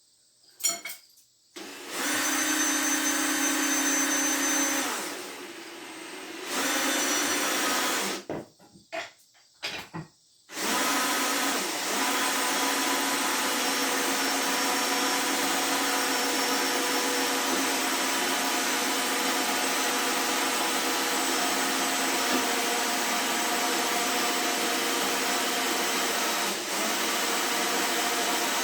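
An electric motor in a workshop power tool runs steadily at high speed, with a steady hum and hiss. It dips about five seconds in, stops at about eight seconds amid a few clicks and knocks, and starts again about two seconds later.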